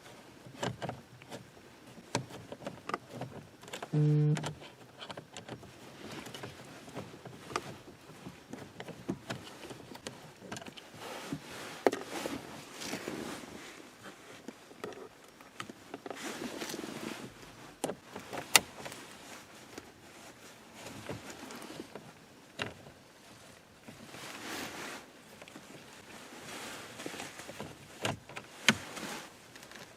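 Screws being taken out of a Honda Civic's plastic dashboard trim with hand tools: scattered clicks, knocks and light scraping. A short beep about four seconds in is the loudest sound.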